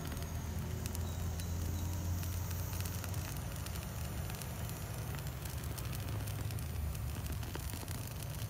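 Handheld jet torch running with a steady low rumble, while shimpaku juniper foliage crackles and pops as it burns.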